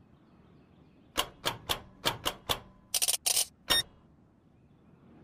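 Washing machine programme dial turned by hand and clicking through its positions. There are six quick clicks, then two short rasps, then a last sharp click as the machine is switched on.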